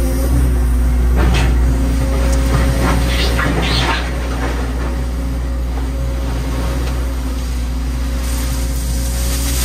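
Excavator engine running steadily, heard from inside the cab. Between about one and four seconds in, several bursts of stone clatter and scrape as the bucket works crushed stone in a dump truck's steel bed.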